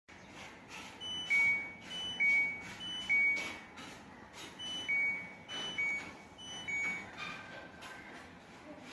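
Washing machine control panel beeping its error alert: two-tone beeps, a higher note then a lower one, in a group of three pairs, a short pause, then three more, with scattered light clicks and knocks. This is the alert for a DC (door lock) error.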